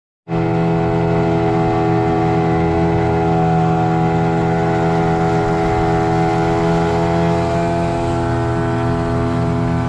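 Small boat's outboard motor running at steady speed under way, a loud, even hum with a strong, unchanging pitch.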